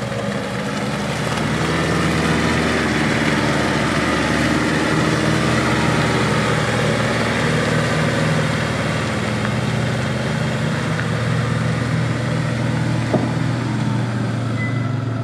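Off-road 4x4's engine running at low, fairly steady revs, growing louder about two seconds in and holding, with one short click near the end.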